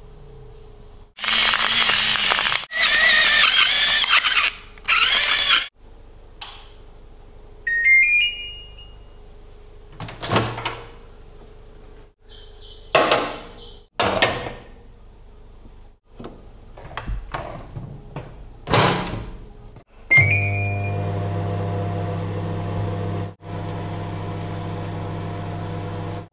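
Kitchen handling sounds, then a microwave oven running. First comes loud noisy rustling for a few seconds, then short electronic beeps and several thunks of the microwave door. About 20 seconds in the oven starts with a beep and runs with a steady hum.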